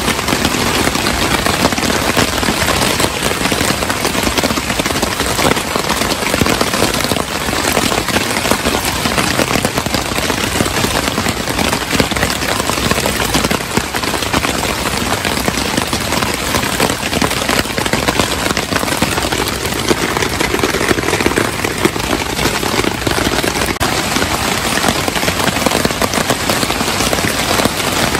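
Heavy rain drumming on a taut Araer 9.3 x 9.3 tarp just overhead: a dense, rapid, steady patter of drops hitting the fabric.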